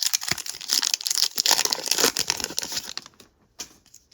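Foil Pokémon card booster pack being torn open, its wrapper crinkling in a dense crackle for about three seconds, then a few faint rustles.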